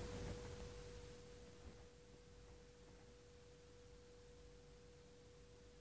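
Near silence: room tone with a faint, steady single-pitch hum.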